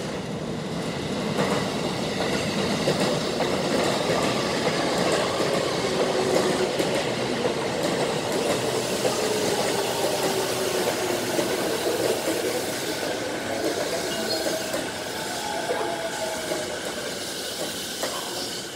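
JR East E233-1000 series electric train pulling in, its wheels running loudly on the rails, the sound swelling as it comes close about a second and a half in. A falling motor whine follows as it slows.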